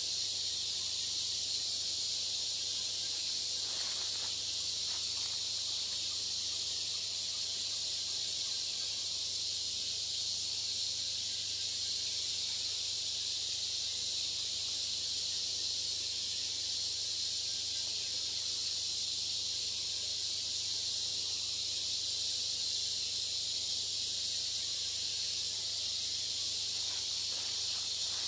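Steady, high-pitched insect chorus, a continuous hiss that holds at one level without a break.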